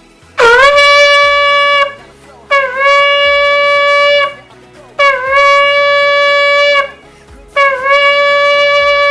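A shofar blown in four long, steady blasts, each opening with a short upward scoop in pitch. The first three last about one and a half to two seconds each with short breaks between them, and the fourth is still held at the end.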